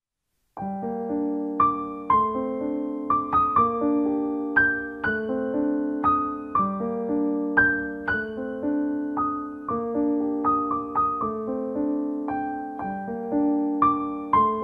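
Background piano music: a slow melody of struck notes that ring and fade over steady lower notes, starting about half a second in.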